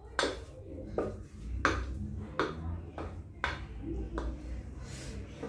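Aluminium cooking pot clinking against an aluminium colander, about six sharp metal knocks roughly a second apart, as boiled spaghetti is tipped out of the pot to drain.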